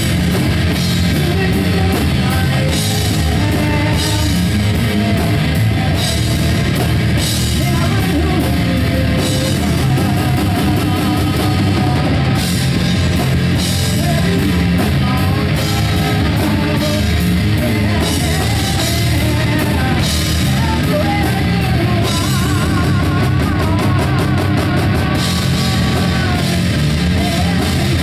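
Live rock band playing loud, with distorted electric guitars and a drum kit, and a woman singing over them.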